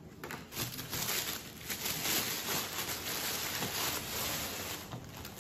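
Rustling and crinkling of a glossy black travel bag and its packaging being handled and opened out, a dense run of small crackles that dies down near the end.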